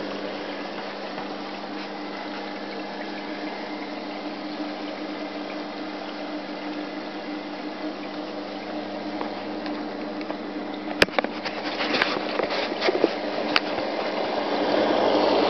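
Reef aquarium's pumps and water circulation running: a steady watery wash with a low, even hum. About eleven seconds in, a few sharp clicks and knocks and louder rustling break in as the camera is handled.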